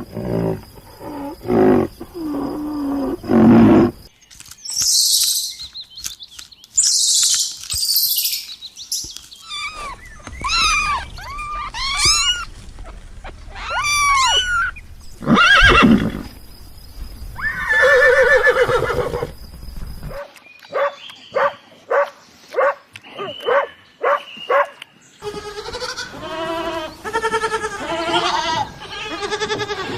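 A run of different animal calls, one kind after another, changing every few seconds: pitched calls, a hissing stretch, fast rising-and-falling high calls, then short repeated calls.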